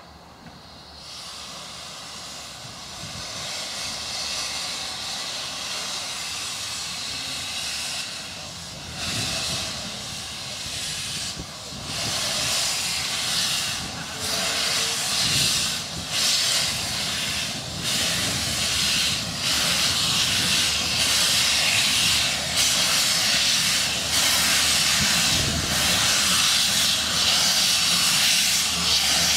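Small narrow-gauge steam locomotive blowing steam from its open cylinder drain cocks: a loud hiss that builds over the first few seconds and grows louder again about twelve seconds in, coming in pulses. The drain cocks clear condensed water from the cylinders as the engine sets off.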